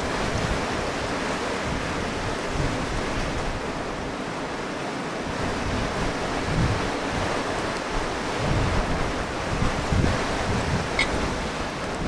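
Sea waves washing onto the shore, a steady rushing wash, with wind buffeting the microphone in low gusts every few seconds.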